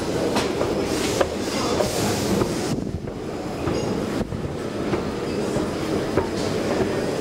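1974 O&K escalator running, its steps and chain giving a steady rumble with irregular clacks and squeaks.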